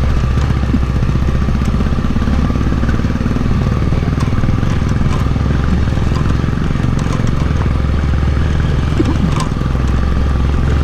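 Hero Xpulse 200's single-cylinder four-stroke engine running steadily as the motorcycle is ridden over a rough, stony trail, with wind noise and a few scattered knocks and clatters.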